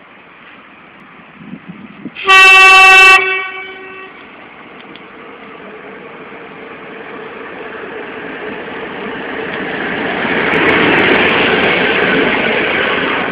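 PKP Energetyka PS-00.M catenary maintenance vehicle sounding one very loud horn blast, about a second long, a little over two seconds in. Then its Deutz BF6M1015 diesel engine and wheels grow steadily louder as it approaches and passes close by, with a few sharp clicks near the end.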